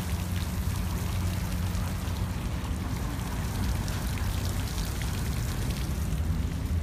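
Water sprinklers spraying, the water pattering steadily on the ground, over a steady low rumble.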